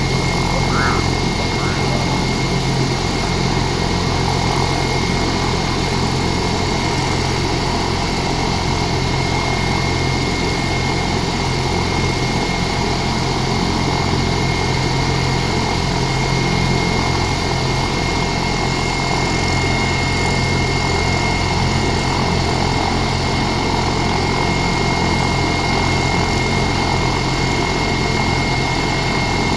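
Air ambulance helicopter running steadily: a constant high turbine whine over an even low drone from the engine and rotor, unchanging in pitch and level.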